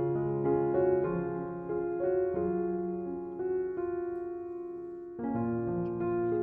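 Background piano music: a slow, soft melody of sustained notes, with a new chord struck about five seconds in.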